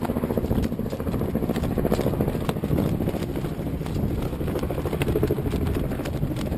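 Low, rough rumble of wind and harbor water with irregular buffeting.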